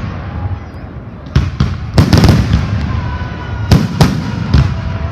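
Fireworks salute: loud bursts in quick pairs, about a second and a half in, at two seconds, and again near the end, with a continuous rolling rumble between them.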